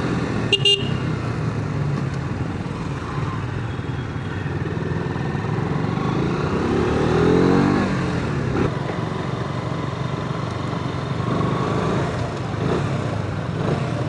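Motorcycle engine running on the road, revving up with a rising pitch about seven seconds in.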